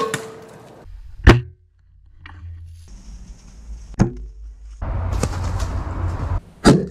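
Bow shots at deer: four sharp snapping thwacks of the bowstring and arrow, the second the loudest. Between the last two there is a stretch of steady rustling.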